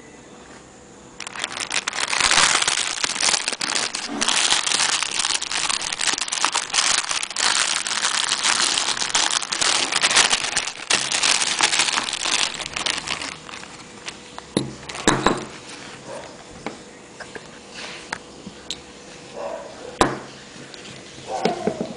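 Clear plastic packaging bag crinkling and rustling as it is torn open and pulled off a red nylon leash, starting about a second in and lasting about twelve seconds. After it, scattered sharp clicks and taps as the leash's metal snap hook is handled, the loudest near the end.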